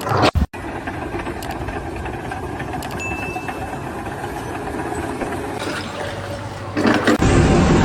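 An engine running steadily, with a brief dropout about half a second in and a louder change in sound near the end.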